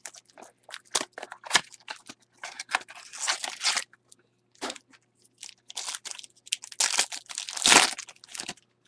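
Foil wrapper of a trading-card pack crinkling in the hands in irregular bursts, then torn open near the end with the loudest rip.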